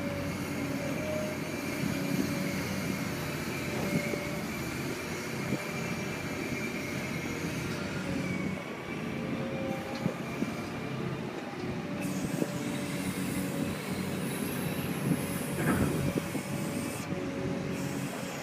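Caterpillar 385C hydraulic excavator running under load, its diesel engine rumbling steadily with a hydraulic whine that wavers in pitch as the boom works the bucket in the water. A few sharp knocks and clanks break through, the loudest about 16 seconds in.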